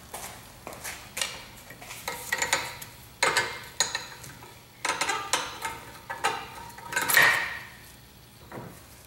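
Small steel pry bar clinking and scraping against the spring on a BMW E46 rear brake caliper as the spring is levered off: an irregular series of light metallic clicks and scrapes, the loudest about seven seconds in.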